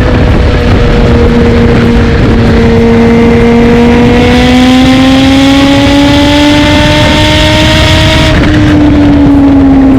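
Kawasaki Z H2's supercharged inline-four running through a Bodis aftermarket exhaust under way, holding a steady note and then gradually rising in pitch as it gains revs. A brighter hiss joins about four seconds in and cuts off a little after eight seconds, where the note begins to fall back.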